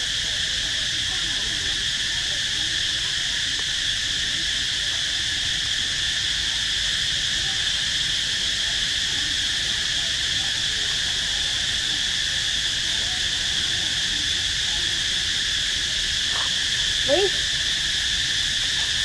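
Steady high-pitched drone of insects, even throughout. About two seconds before the end, one short wavering call from an animal.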